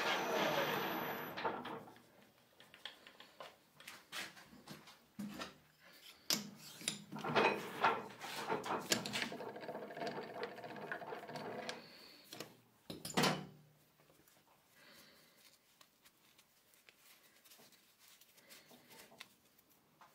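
Lathe running at the end of a rotary-broaching pass, then winding down over the first two seconds. After that come scattered clicks and knocks, with one sharper knock about thirteen seconds in.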